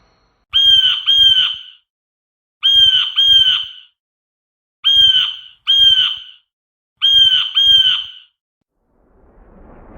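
Blue jay giving its harsh two-note "jay-jay" call, four times over, each pair about a second long with short silences between.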